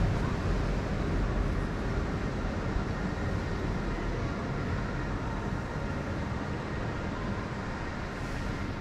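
Steady low rumbling background noise with no speech, easing off slightly toward the end.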